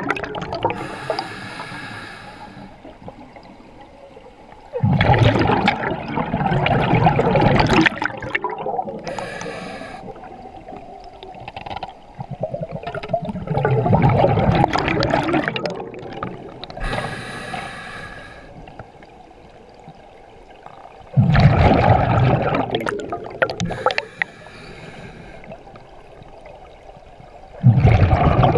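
Scuba diver breathing through a regulator underwater: a short hissing inhale, then a few seconds later a loud rush of exhaled bubbles lasting two to three seconds, repeating about every eight seconds.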